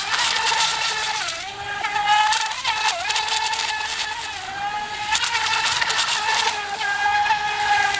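Radio-controlled ECO 2008 boat's motor running flat out: a steady high-pitched whine that dips briefly in pitch a couple of times, over a rushing hiss.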